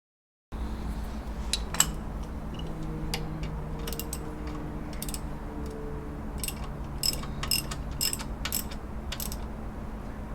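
Ratchet wrench clicking in short runs as it tightens the long tension bolt on the alternator belt adjuster, over a steady low hum.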